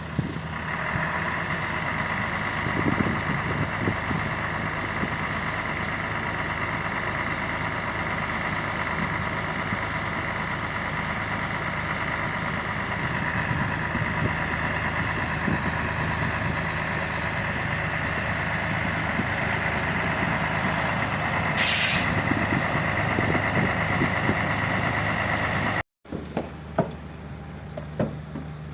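Heavy diesel truck or construction-machine engine running steadily with a constant whine above it. Near the end comes a short burst of air hiss, like an air brake being released, then the sound cuts out briefly and a few sharp knocks follow.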